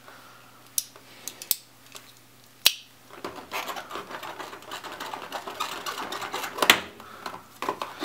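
Handling noise inside an open computer case as a stubborn part is worked loose: a few sharp clicks, then about four seconds of scraping and rattling of plastic and metal, with one loud click near the end.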